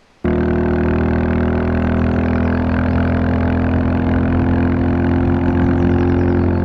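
Royal Enfield Classic 350's single-cylinder engine running at a steady speed, cutting in abruptly just after the start.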